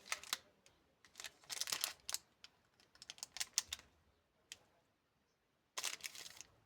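Candy packaging being handled: short bursts of sharp plastic clicks and crinkles, four or five clusters with quiet pauses between them.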